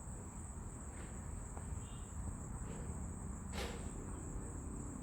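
An insect trilling: one steady, unbroken high-pitched tone over a low rumble, with a sharp click about three and a half seconds in.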